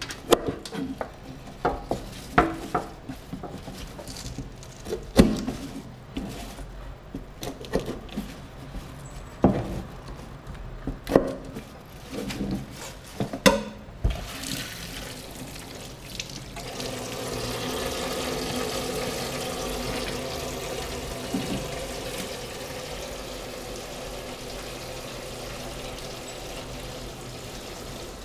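A kitchen knife knocks against a plastic cutting board in a stainless steel sink, a dozen or so irregular sharp chops. About halfway through, the kitchen tap is turned on and runs steadily, splashing into the sink.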